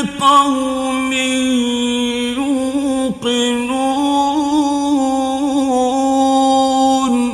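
A man reciting the Quran in the melodic mujawwad tajweed style. He draws out the words of a verse ending ('li-qawmin yuqinun') in long, ornamented, wavering notes, with a brief breath about three seconds in.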